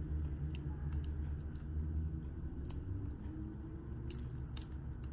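Plastic packaging being handled and pulled at: scattered small clicks and crinkles over a steady low hum, with one sharper click about four and a half seconds in.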